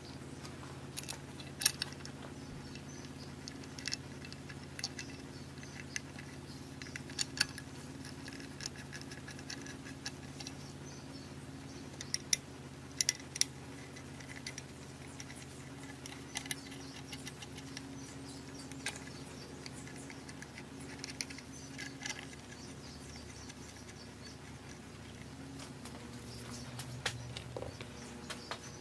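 Scattered light metallic clicks and taps as an oil pump pickup tube and its bolts are handled and fitted to the oil pump on an engine block, over a steady low hum.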